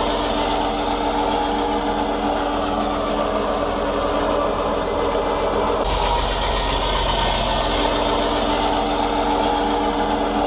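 Fordson Power Major tractor engine running steadily, driving the sawmill through its PTO, with a sudden break in the sound about six seconds in.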